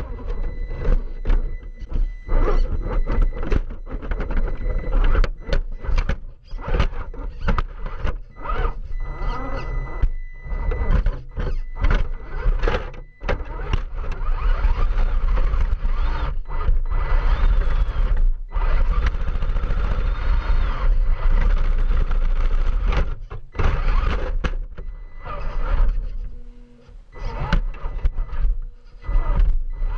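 Onboard sound of an Axial SCX10 II RC crawler driving over rocks and dry grass: its electric motor and gears whine in stop-start bursts as the throttle comes on and off, with many knocks and thuds as the chassis bumps over the rubble.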